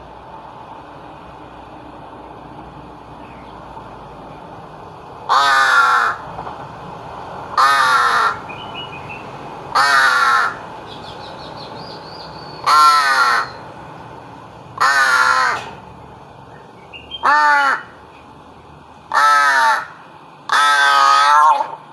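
A caged crow cawing: eight loud, harsh caws about two seconds apart, starting about five seconds in, the last one longest.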